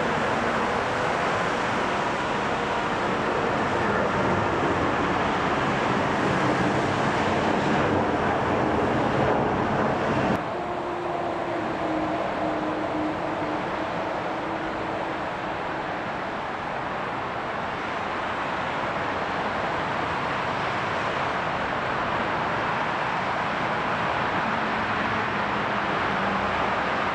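Airbus A321 jet engines: the steady roar of an airliner climbing out after takeoff. About ten seconds in the sound cuts abruptly to a slightly quieter engine noise with a few faint steady tones, from a second A321 moving along the runway.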